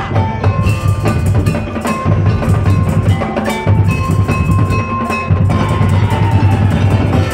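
Madurese daul (tong-tong) ensemble playing loud: a dense, pounding drum pattern that breaks off briefly every couple of seconds, with a held high melody over it.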